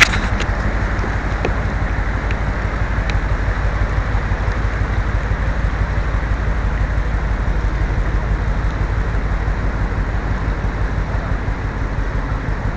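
Steady low rumble with a rush of churning water from a large container ship and a tugboat moving close alongside.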